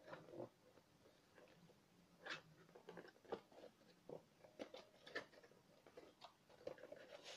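Faint scrapes, taps and clicks of a cardboard box being handled and its lid slid open, coming in short scattered bursts.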